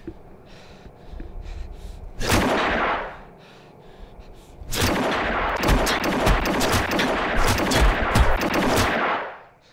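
A fistfight's blows landing: one heavy hit about two seconds in, then a rapid, relentless flurry of punches for about four seconds that stops abruptly near the end.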